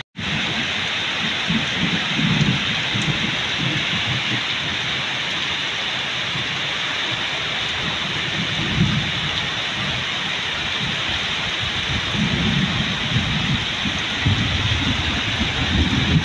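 Heavy storm rain pouring steadily onto a paved path and potted plants, with low rumbles swelling and fading every few seconds.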